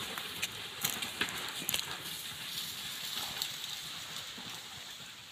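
An elephant herd moving through dry grass and scrub: a steady rustle with a few sharp cracks like snapping twigs, most of them in the first two seconds.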